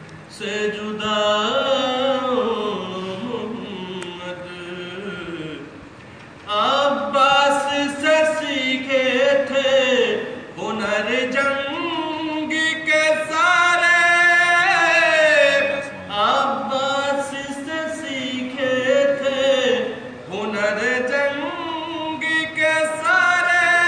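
A man chanting a nauha, a Shia mourning lament, in long melodic phrases with gliding pitch, broken by short pauses for breath.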